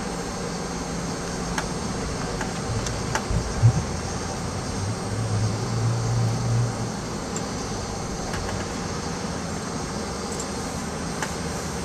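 Cabin noise inside a Boeing 757 taxiing: a steady hum of engines and air conditioning, with a short thump about three and a half seconds in and a low hum that swells for a couple of seconds around the middle.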